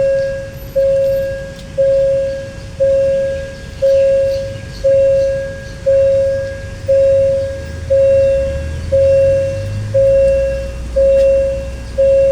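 A warning bell rings in a steady series, one sharp stroke about every second, each stroke fading before the next. Under it, a diesel locomotive's engine rumbles low.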